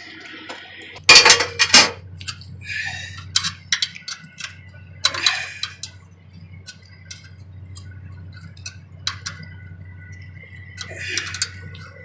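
Irregular metal clinks and clatter of a wrench working the nut on the bolt of a steel battery hold-down lock bar as it is tightened, the loudest clatter about a second in.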